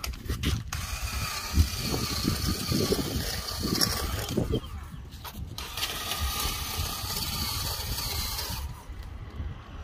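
Motor of a Ryobi One+ cordless patio cleaner whirring steadily with a thin whine. It drops out briefly about five seconds in, then runs again and stops near the end.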